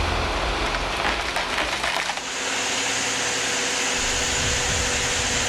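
A run of sharp cracks and knocks, then, about two seconds in, a steady, high-pitched machine noise with a held tone takes over.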